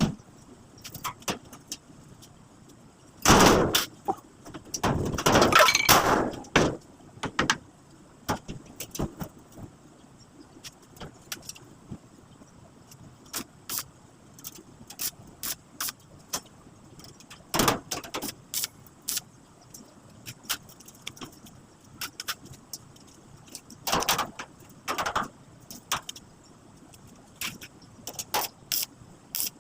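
Metal parts being handled and knocked during hand assembly: scattered sharp taps, clicks and clanks, with a few louder rattling bursts a few seconds in and again later.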